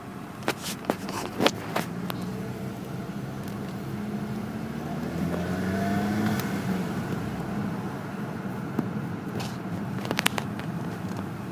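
Volkswagen Mk5 Jetta GLI's turbocharged 2.0-litre four-cylinder running, its pitch rising as it revs up to a peak about six seconds in, with a screech that the owner calls loud. Sharp clicks near the start and again near the end.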